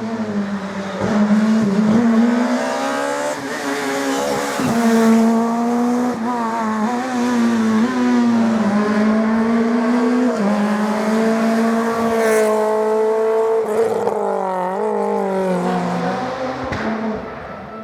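Rally car engine run hard at high revs. Its pitch rises and drops again several times as the driver changes gear and lifts off.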